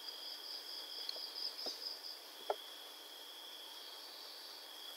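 Faint background of two steady high-pitched tones, the higher one pulsing, with a couple of soft short clicks around the middle.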